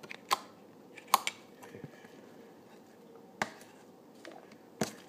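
Handling of homemade slime and a fork on a paper plate: a few separate sharp clicks and taps, the loudest a little over a second in.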